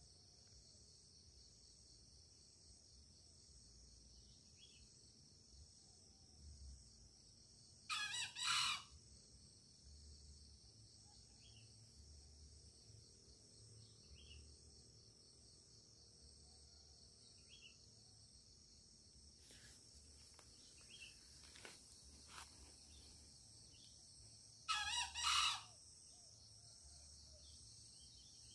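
A wild junglefowl rooster crows twice, each a short crow under a second long, about 17 seconds apart. A steady high drone of insects runs underneath.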